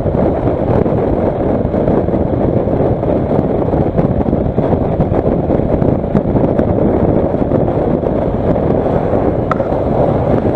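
Steady wind rush buffeting the microphone of a Kawasaki Versys motorcycle at highway speed, with the bike's road and engine noise beneath it.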